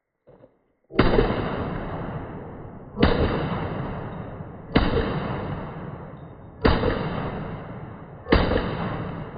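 AR-15-type gun firing 5.56 rounds: five single shots, slowly paced about two seconds apart, each followed by a long echo that dies away.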